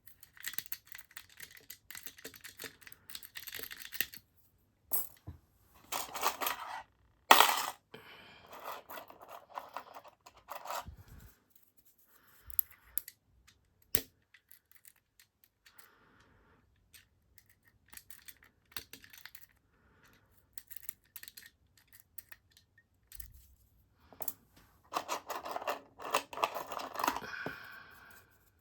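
Lock-picking tools working in a cheap padlock's keyway: irregular metallic scraping and small clicks, with one sharper click about seven seconds in.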